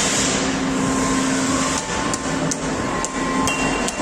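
Steady hum of a Deckel Maho DMG 50 Evo machining center and its Lang Technik workpiece-loading arm running, with about six sharp metallic clicks in the second half.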